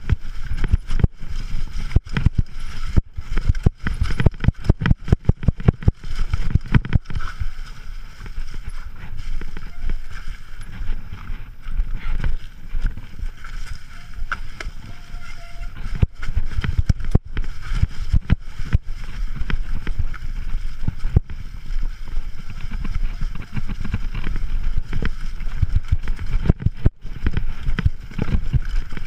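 Mountain bike rattling and clattering down rocky, leaf-covered singletrack, heard from on the bike: quick irregular runs of sharp knocks from the bumps over a steady low rumble.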